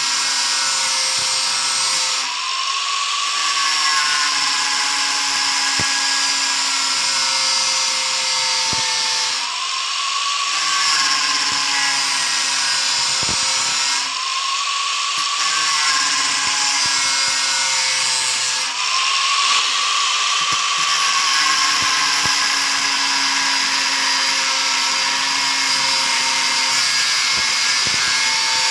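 Hitachi angle grinder with a cutting disc running at speed, cutting the copper winding wire off an electric motor armature. Its steady whine rises in pitch and settles back about four times.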